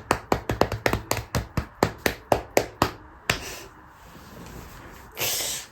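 A quick, even run of light taps, about four a second, stopping after about three seconds, followed near the end by a short hiss.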